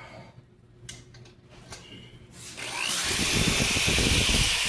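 A few light knocks, then an electric power tool spins up with a rising whine about two and a half seconds in and runs loud, with a rough low rumble as it works.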